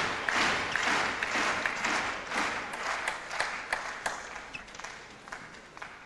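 Arena crowd clapping, at first in a rhythm of about two claps a second, then thinning into scattered claps that fade away.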